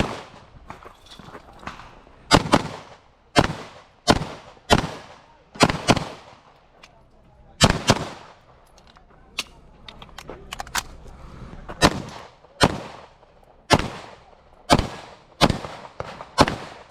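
Pistol shots fired during a timed IPSC handgun course of fire: about fifteen sharp cracks at irregular intervals, some close together and others a second or more apart, each followed by a short echo.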